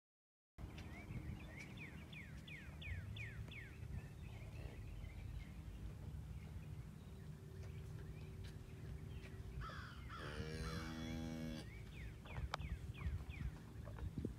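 A heifer gives one low moo of just over a second, about ten seconds in, as she stands over her newborn calf. Birds call with quick falling chirps near the start and again near the end, over a steady low rumble.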